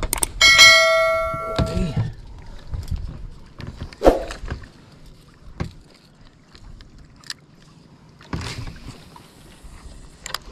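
A metal object struck on the boat rings out about half a second in, a clang that dies away over about a second and a half. Scattered knocks and clicks of handling follow.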